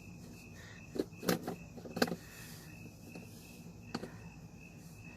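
A strong magnet being fished around inside a granite sculpture for a dropped tape measure: a handful of short clicks and scrapes, about a second in, around two seconds in and again near four seconds, over a faint steady high tone.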